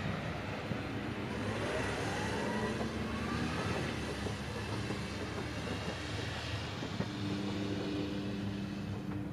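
Izuhakone Railway Sunzu Line electric train running, with a steady rumble of running noise. A motor whine rises in pitch over about two seconds as the train picks up speed.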